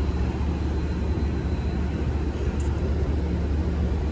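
Steady low drone of an MBTA commuter rail train standing idle at the platform, with a faint high steady whine above it.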